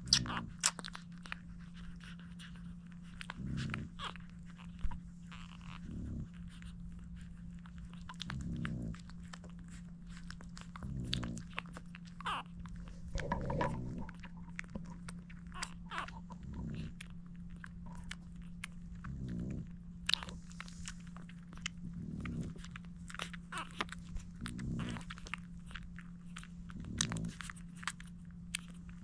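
Newborn French bulldog puppies nursing: many small wet sucking and smacking clicks, with a low grunt-like sound recurring about every two and a half seconds over a steady low hum.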